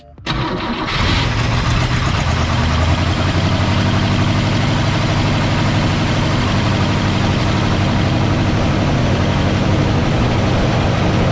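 1962 Cadillac's 390 V8 running steadily on its newly fitted mechanical fuel pump. The sound comes in suddenly just after the start and settles within about a second.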